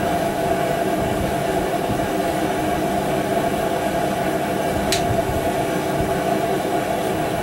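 Steady mechanical drone with a constant hum running under everything, and one light sharp click about five seconds in.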